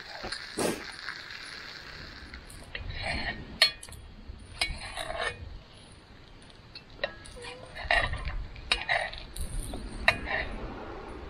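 A steel knife blade clinking and scraping against a cast iron skillet as meat slices are cut and moved in the pan. It comes in short irregular bursts with sharp clicks, the loudest about a third of the way in.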